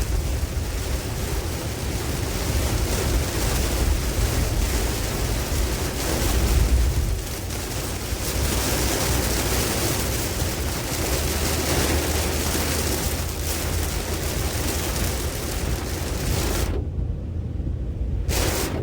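Tropical storm wind rushing in gusts, buffeting the microphone with a heavy low rumble over a steady hiss. Near the end the hiss drops out twice for about a second, leaving only the rumble.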